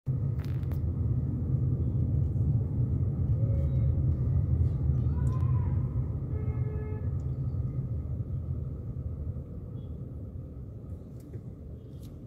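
Low road and engine rumble inside a moving car's cabin, which fades over the second half as the car slows for traffic at a red light.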